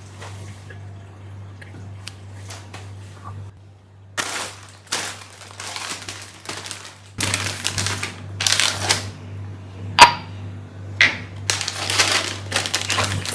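Household handling noises: a run of short rustling and clattering bursts with a sharp click about ten seconds in, over a steady low hum.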